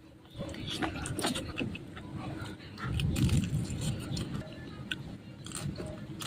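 Close-miked eating sounds: chewing and mouth smacking with many short, sharp clicks scattered throughout, and a louder low stretch about three seconds in.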